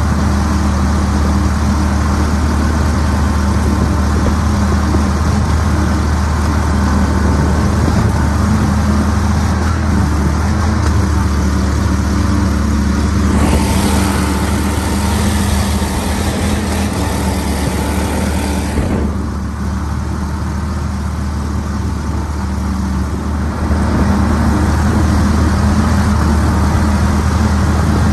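40 hp EFI Pro-Drive outboard mud motor running steadily at speed while pushing the boat through thick water hyacinths. About halfway through, a loud hiss joins for roughly five seconds, after which the sound is slightly quieter for a few seconds.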